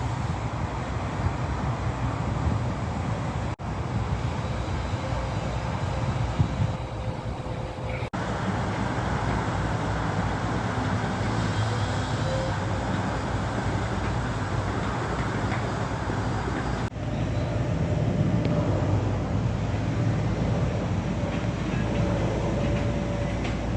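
Steady low rumble of diesel construction machinery running, with a faint humming tone. It drops out abruptly three times where the footage is cut.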